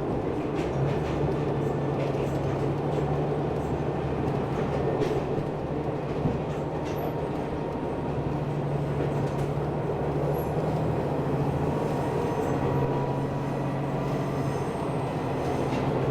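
Takachiho Railway diesel railcar running along the track: a steady engine drone over rumbling wheel and rail noise, with faint clicks.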